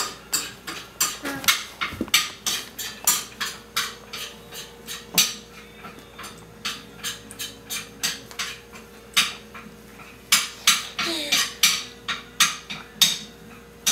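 A run of sharp, irregular clicks and clacks, two or three a second, with a faint steady hum underneath.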